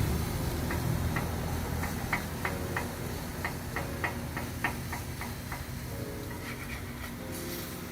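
A run of quick, irregular clicks of kitchen utensils over a steady low background hum while burgers are being cooked. The clicks stop about two-thirds of the way through.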